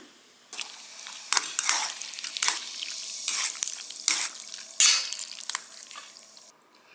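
Jjajangmyeon noodles being mixed into thick black bean sauce with chopsticks in a stainless steel bowl: wet, sticky squelching in a series of irregular strokes that stops shortly before the end.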